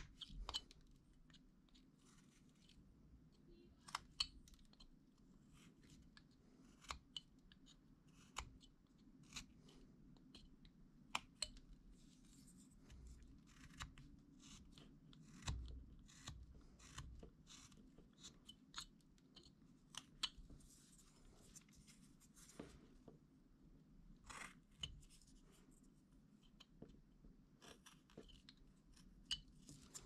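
A carving knife cutting into wood by hand: quiet, irregular short cuts, clicks and brief scrapes, a few sharper ones standing out.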